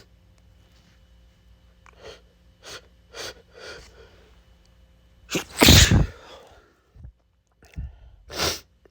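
A man's allergy sneeze: four quick catching breaths building up, then one loud sneeze about five and a half seconds in, followed by two shorter bursts near the end. The sneezing is set off by pollen allergy.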